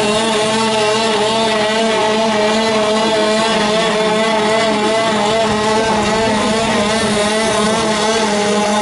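Boston Dynamics WildCat quadruped robot running, its onboard combustion engine driving the hydraulics with a loud, steady drone at a fixed pitch.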